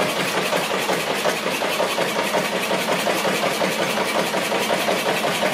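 Lister 8/1 single-cylinder diesel engine running steadily under its own power at its slow governed speed, belt-driving a 12 kW ST generator head.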